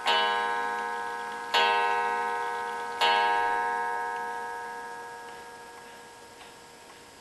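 Pendulum wall clock striking the hour on its coiled wire gong: the last three strokes of twelve, about a second and a half apart, each ringing with many overtones. The final stroke fades slowly, with faint ticking under the dying ring.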